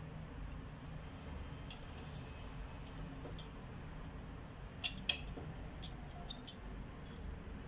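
Scattered light clicks and clinks of kitchen utensils, a metal ring cutter pressed into semolina dough on a pan and hands at a glass bowl, over a low steady hum.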